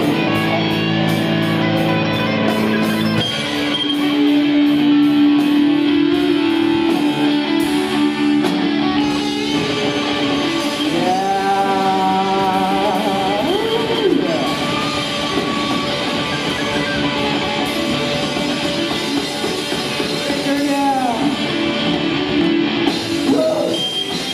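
Live rock band playing loud: electric guitars over a drum kit, with a singer's voice on the microphone partway through.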